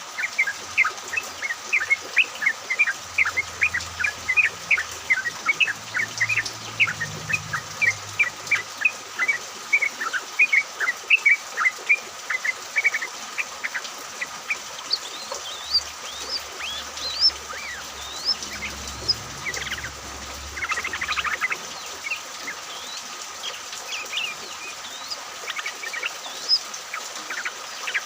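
A group of yellow-vented bulbuls chattering together in a dense run of short chirps. Higher notes join in about halfway through.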